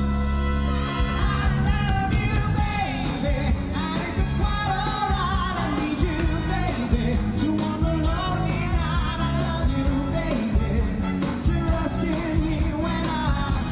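Male vocalists singing a rock-and-roll pop number with a live band, amplified through a PA system. The voices glide and hold over a steady beat and bass line.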